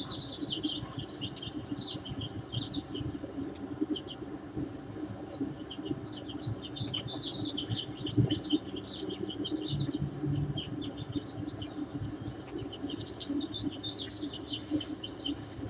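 Small birds chirping in quick, scattered bursts over a steady low rumble.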